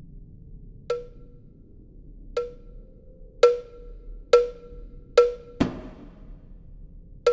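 Six sharp percussive knocks, each with a short pitched ring, like a wood block. The hits come closer together from about three seconds in.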